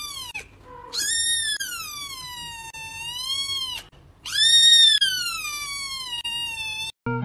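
A kitten meowing: long, drawn-out high-pitched meows that rise and then sag in pitch. One ends about half a second in, and two more each last nearly three seconds.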